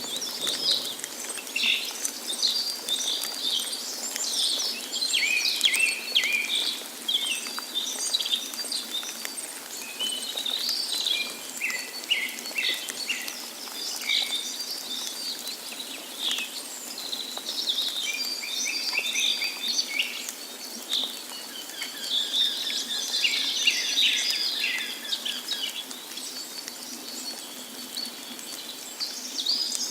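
Several songbirds chirping and singing over and across one another, with short rapid trills and calls, over a steady rush of falling water.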